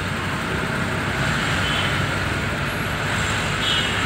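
Steady engine and road noise heard from inside a car's cabin while driving through town traffic.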